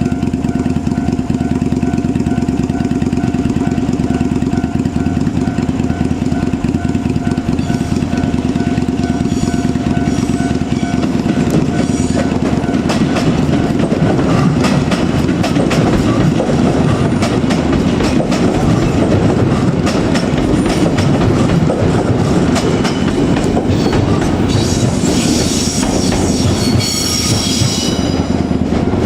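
JR Kyushu 817-series electric multiple unit train, two two-car sets coupled, running past, its wheels clicking over rail joints. The running noise grows fuller from about halfway, with a brief higher hiss near the end.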